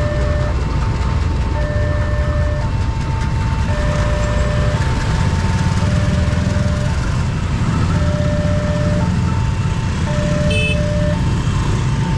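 Railway level-crossing warning alarm sounding, an electronic signal alternating between a lower and a higher tone about once a second, over the rumble of motorcycle engines. A short high beep sounds about ten and a half seconds in.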